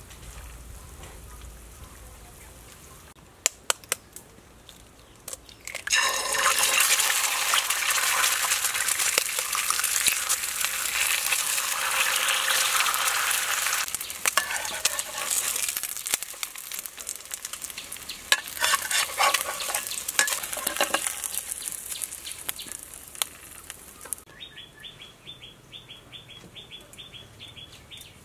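Eggs sizzling as they fry in hot oil in a pan. The sizzle is loud for several seconds, then carries on more quietly with scattered clicks.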